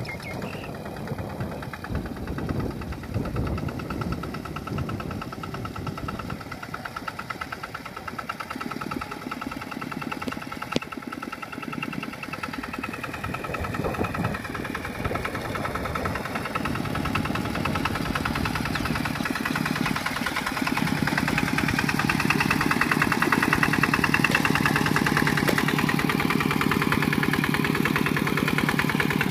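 Kubota RT140 Plus single-cylinder diesel engine of a two-wheel walking tractor running steadily under load as it pulls its cage wheels through paddy mud, growing louder as it comes closer.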